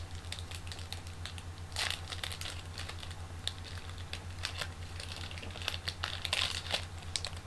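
Basketball trading cards being handled and flipped through: a run of light clicks and snaps. There are two longer rustling bursts, about two seconds in and again around six seconds.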